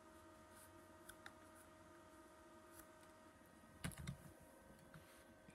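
Near silence with a faint steady hum, broken by a couple of faint ticks a little after one second and a soft knock about four seconds in as the carving knife and pine lure blank are handled on the workbench.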